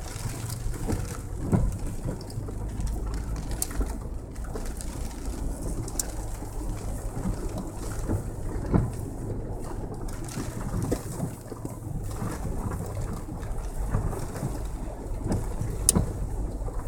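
Toyota 4Runner running at a low, steady hum while driving a rough trail, with scattered sharp clicks and knocks over it.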